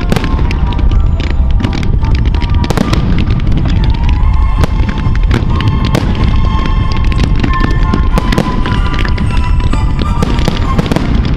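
Fireworks display: multi-shot cakes fire fans of comets and shells burst overhead, a dense string of sharp bangs and pops with music playing alongside.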